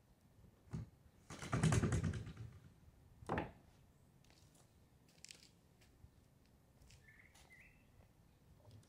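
A tilt cord pulled through its guides and a kayak trolling motor pivoting up on its mount: a rasping rattle lasting about a second, then a short knock.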